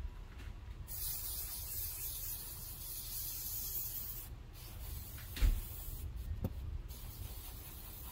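Aerosol can of spray adhesive hissing in bursts: one long spray of about three seconds, then shorter sprays with brief pauses, and a light knock about five and a half seconds in.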